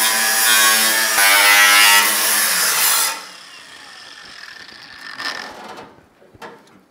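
Cordless angle grinder cutting through the car body's sheet steel, a steady high whine over a harsh hiss. Its pitch drops as it stops about three seconds in, followed by quieter metal handling with a single knock.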